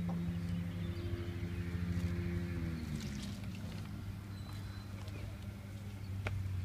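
An engine or motor running steadily, its pitch sliding down about three seconds in. A single sharp click near the end.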